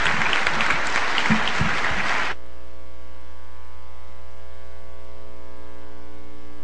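Audience applause for about two seconds, cutting off abruptly into a steady electrical mains hum, a buzz of many evenly spaced tones, for the rest.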